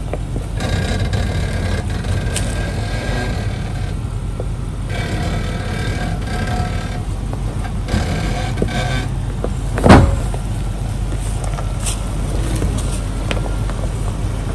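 1999 Range Rover P38's V8 engine running steadily at low revs as it crawls over rocks, with one loud thump about ten seconds in.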